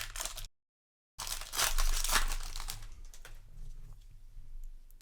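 Plastic foil booster pack wrapper crinkling and being torn, loudest about a second and a half in, then quieter rustling. Just after the start the sound drops out completely for under a second.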